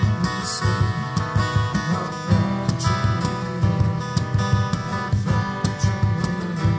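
Two acoustic guitars playing together, plucked and strummed chords in a steady flow of notes.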